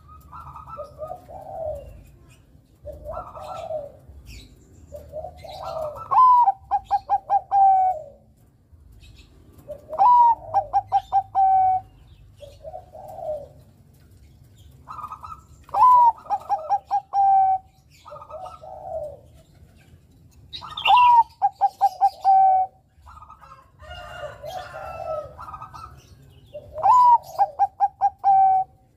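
Zebra dove of the Bangkok-bred perkutut strain singing. It repeats a phrase about every five seconds, a rising coo followed by a quick run of short staccato notes, with softer coos in between.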